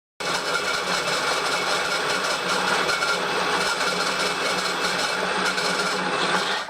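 Metalworking machine tool cutting a steel hinge part: a loud, steady, gritty cutting noise that starts suddenly and stops just before the end.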